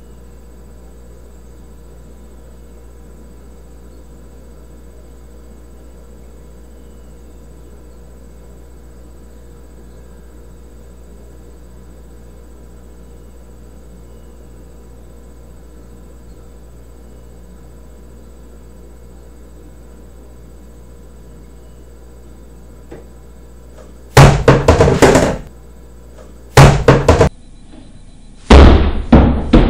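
Steady low hum, then near the end three loud bursts of knocking and clattering about two seconds apart as the tipping-tube mousetrap drops off the counter into the plastic wastebasket below.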